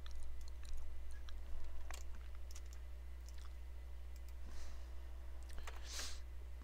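Scattered light clicks of a computer mouse and keyboard, over a steady low electrical hum, with a brief soft hiss near the end.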